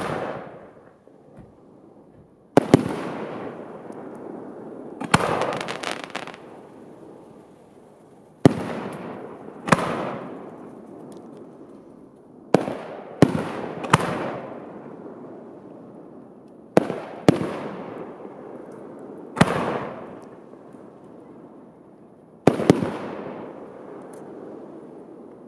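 Aerial firework shells bursting one after another: about a dozen sharp bangs, some in quick pairs, each trailing off in a long rolling echo. Around five seconds in, a burst of rapid crackling cracks.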